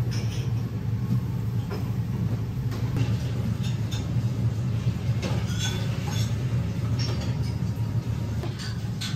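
Restaurant ambience: a steady low hum with scattered light clinks of dishes and utensils.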